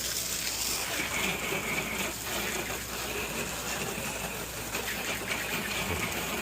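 Steady hiss of a sprayer jet spraying cleaning solution onto a garage door during a soft wash, with no breaks.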